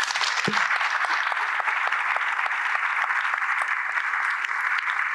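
Audience applause, starting abruptly and going on steadily, with a single low knock about half a second in.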